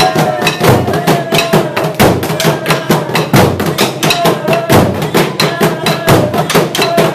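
Burundian drums beaten with wooden sticks in a fast, steady rhythm of loud strikes, several drums together.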